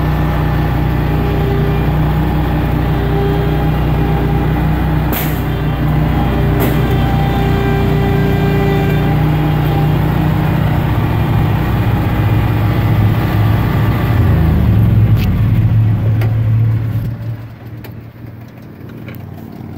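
An engine running steadily and loudly close by. Its pitch wavers about 14 to 15 seconds in, and it drops away about 17 seconds in.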